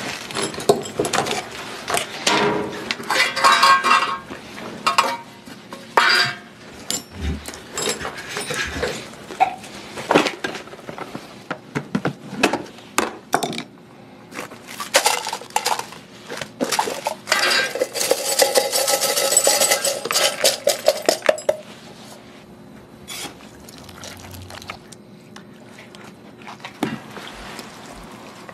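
Tins, tools and other small hard objects being handled on a workbench: a run of quick clinks, knocks and clatters, with a steadier noisy stretch of a few seconds about two-thirds through. It goes quieter near the end.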